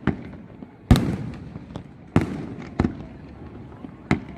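Firework shells bursting: five sharp bangs at irregular intervals of roughly a second, each trailing off in a rumbling echo. The bang about a second in is the loudest.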